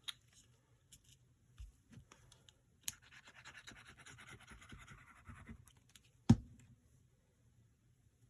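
Scratchy rubbing on paper for about three seconds, followed by a single sharp knock on the craft desk.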